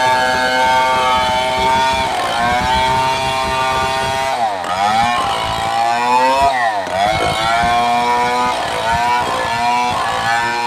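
STIHL 070 two-stroke chainsaw running at high revs. Its engine note drops sharply and climbs back three times: about two seconds in, about four and a half seconds in, and near seven seconds.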